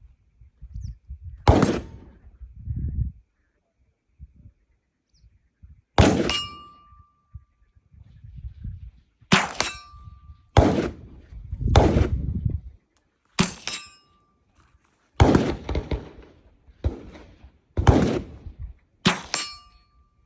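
.22 LR rifle shots, about eight, a few seconds apart. Several are followed by a brief metallic ding, the ring of a steel target being hit.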